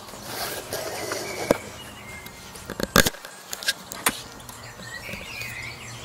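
Hand tools being picked up and handled: a few sharp clicks, then a short clatter with one loud knock about halfway through, and a couple more clicks after it.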